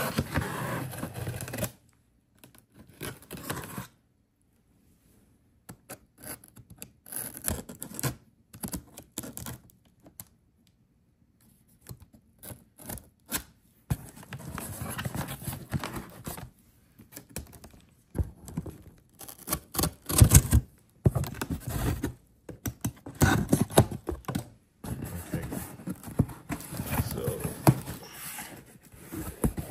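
A cardboard shipping box being cut open and unpacked by hand: irregular scraping, tearing and knocking, with a louder knock about twenty seconds in and a couple of silent stretches.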